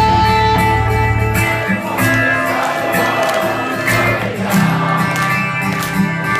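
A live rock band playing, with guitar to the fore. The deep bass drops out about a second and a half in, leaving guitar and higher instruments.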